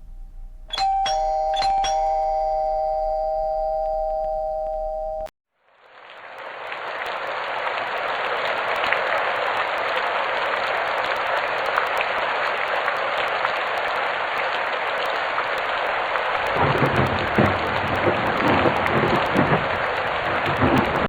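A two-tone ding-dong doorbell chime, its two notes ringing on for a few seconds before cutting off. After a short gap, a steady rain-like hiss fades in, with low rumbling added in the last few seconds.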